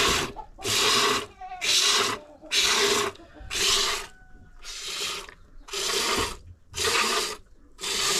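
A goat being milked: a hissing stroke of milk about once a second, nine in all, evenly paced.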